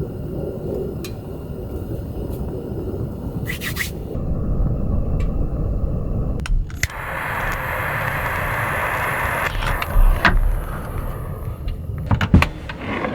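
Strong wind rumbling and buffeting around a small car, with a louder hissing gust about seven seconds in. Scattered clicks and knocks come through, from handling things in or around the car.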